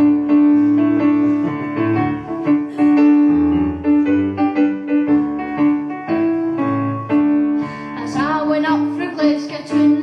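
Piano introduction to a song, with a held note running under changing chords. A voice begins singing about eight seconds in.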